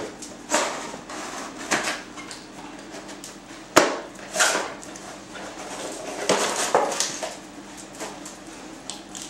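Dogs nosing and mouthing at a small cardboard box on a concrete floor to get at hidden treats. It gives irregular short rustles and knocks, with one sharp knock about four seconds in.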